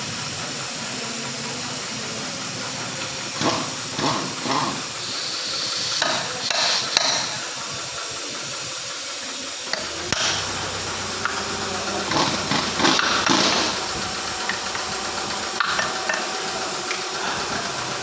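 Steady hiss with scattered metallic clinks and knocks, as of hand tools on metal parts during a gearbox repair.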